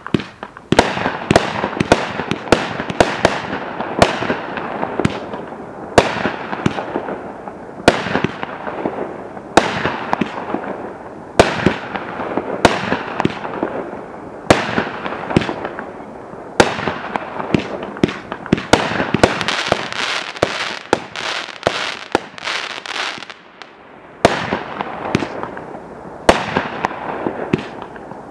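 Multi-shot fireworks cake repeater firing shot after shot, a sharp bang about every two seconds. Each bang is followed by a dense, fading crackle from the crackle and strobe effects. The shots come thicker for a couple of seconds past the middle.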